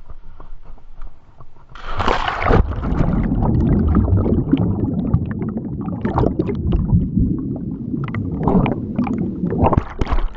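A splash about two seconds in as a GoPro drops into pond water, then muffled underwater bubbling and gurgling with small crackles as the camera sinks.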